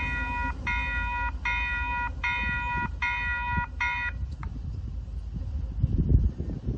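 Electronic warning bell of a railway level crossing sounding in steady, evenly spaced beeps, about four every three seconds, then stopping about four seconds in. Low rumble and wind underneath.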